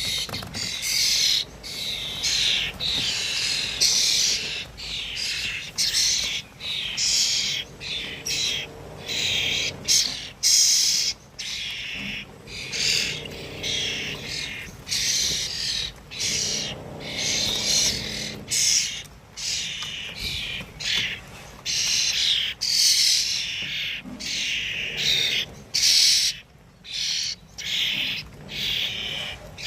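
Several birds chirping and chattering in quick, overlapping calls, with only brief pauses between them.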